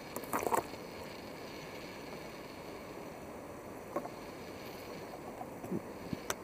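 Kayak paddle strokes in calm water: a few short splashes and drips, with a sharp knock about four seconds in and more splashes near the end, over a steady hiss.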